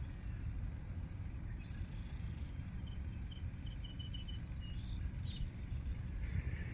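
Steady low outdoor rumble. About two and a half seconds in comes a quick run of short, high chirps from a small animal, about four or five a second, followed by a brief hiss near the end.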